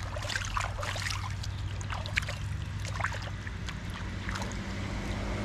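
Hands splashing and swishing in shallow river water as they are rinsed clean, a run of short splashes over the first three seconds that then eases off.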